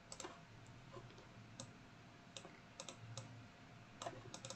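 Faint computer mouse clicks, about a dozen single clicks spread irregularly, some in quick pairs, over near silence.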